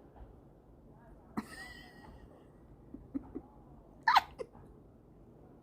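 A house cat making a few short, sudden sounds, the loudest about four seconds in.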